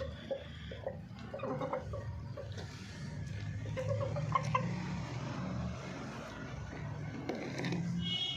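Chickens clucking in short, soft calls scattered over a steady low rumble.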